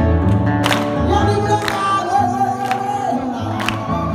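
Live indie-folk band playing a song, with a sung melody over bass, held chords and a drum hit about once a second.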